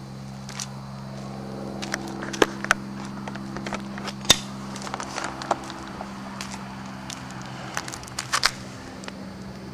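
Scattered clicks and light knocks from a handheld camcorder being moved and repositioned, over a steady low hum.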